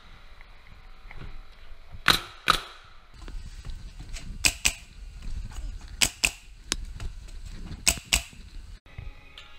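Nails being driven into stair lumber: sharp cracks in pairs, four pairs roughly every two seconds.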